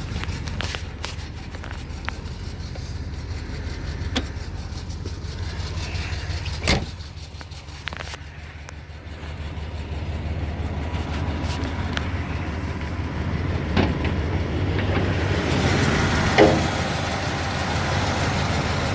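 1987 Jeep Grand Wagoneer's AMC 360 V8 idling steadily with a low rumble. A single sharp clack comes about seven seconds in, and a hiss builds over the last few seconds.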